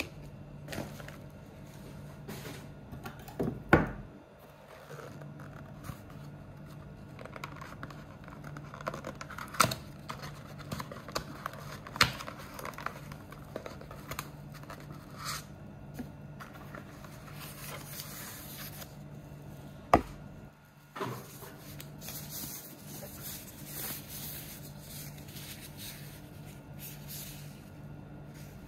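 Cardboard boxes and paper inserts being handled and opened: irregular rustling, crinkling and sliding with a few sharp knocks and clicks, the sharpest about 20 seconds in, over a low steady hum.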